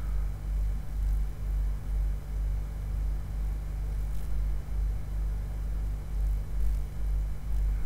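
Steady low electrical hum with a wavering rumble under it, background noise picked up by the recording microphone. A faint click about four seconds in, likely the mouse clicking the replace button.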